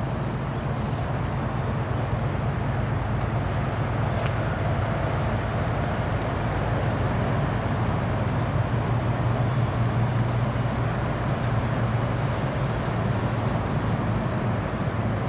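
Steady low rumble of road traffic on the elevated expressways, a continuous drone with no distinct passing vehicles.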